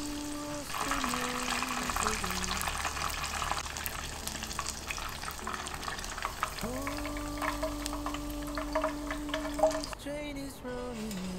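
Battered chicken thigh deep-frying in hot oil, a dense sizzle of fine crackles that starts just under a second in and stops shortly before the end. Background music with a held melody runs underneath.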